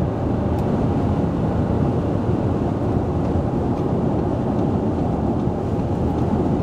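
Steady road and wind noise inside the cabin of an Audi Q7 55 TFSI e travelling at motorway speed, a low, even rumble with no distinct engine note.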